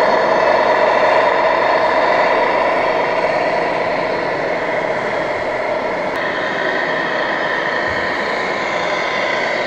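1/14-scale radio-controlled model trucks running: a steady mechanical whirr with several held whining tones, easing slightly about halfway through.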